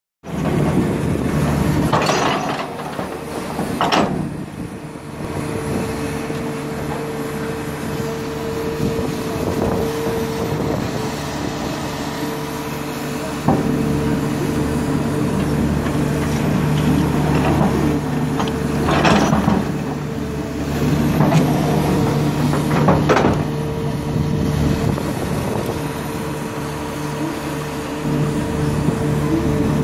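Komatsu hydraulic excavator's diesel engine running steadily under load, with a constant engine tone, while it digs and loads soil into a dump truck. A few sharp knocks and bangs stand out above it, as the bucket works and soil lands in the truck's steel body.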